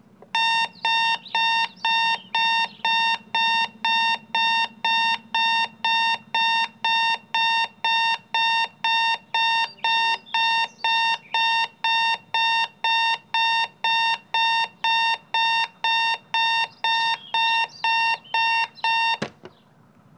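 Digital bedside alarm clock beeping, a steady train of about two high beeps a second, cut off suddenly by a click as it is switched off near the end.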